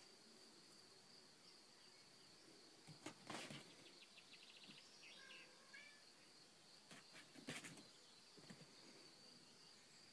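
Near silence: faint outdoor ambience with a steady high insect drone, a brief bird chirp midway, and a couple of clusters of soft knocks.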